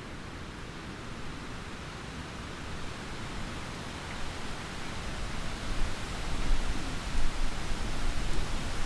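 Thunderstorm: steady hiss of rain, with a low rumble of thunder building up in the second half and growing louder toward the end.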